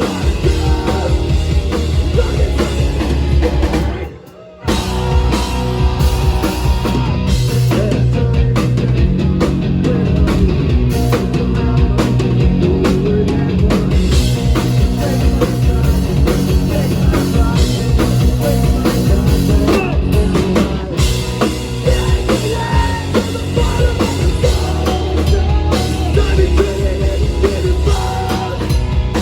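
Live punk rock band playing loud, with a driving drum kit; the whole band cuts out for about half a second around four seconds in, then comes back in.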